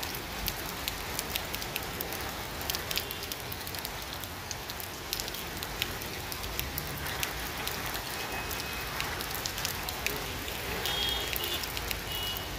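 Heavy rain falling steadily on pavement and parked cars, with many sharp clicks of nearby drops hitting.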